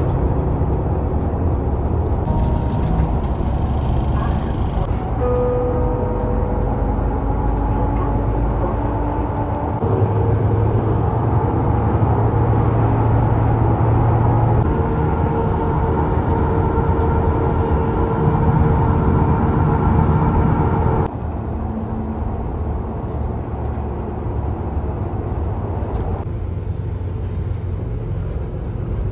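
Inside a moving local bus: steady engine and road noise, with humming tones from the drivetrain that shift in pitch several times as it drives. It drops in loudness about twenty seconds in.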